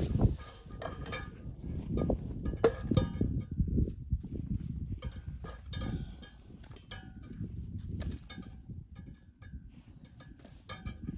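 Irregular light metallic clinks and knocks, some with a short ring, like metal camp gear or utensils being handled, over a low steady rumble.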